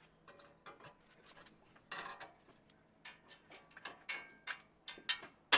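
Irregular clinks, scrapes and knocks of a powder-coated steel bash plate being held up and shifted against a 4x4's underbody while a bolt is lined up, with one sharp metallic knock near the end.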